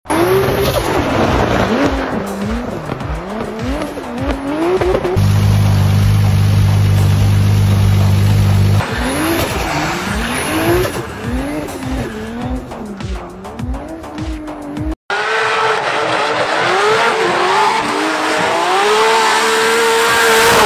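Drift cars' engines revving up and down again and again, with tyre squeal as the cars slide. The pitch holds steady for a few seconds mid-way, and the sound cuts off abruptly about 15 s in before another car's engine picks up at a steadier pitch.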